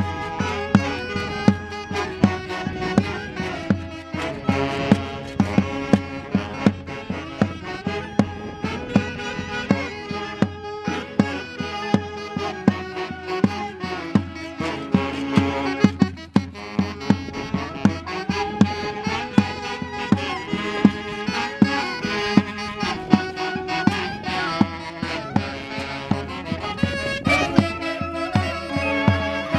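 Live band playing traditional dance music, saxophones among the instruments, over a steady drum beat.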